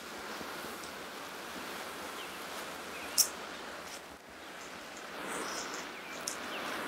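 Outdoor ambience: a steady background hiss with a few faint high bird-like chirps, and one sharp high click about three seconds in.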